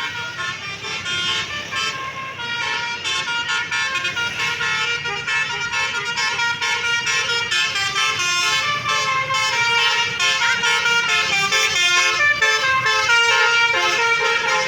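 Bus telolet horn, a Basuri multi-tone musical horn set, playing a fast stepping melody of several notes sounding together. It grows louder through the passage.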